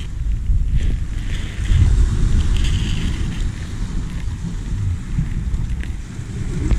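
Wind buffeting the microphone, an uneven, gusty low rumble, with a fainter hiss of small waves washing on the pebble shore.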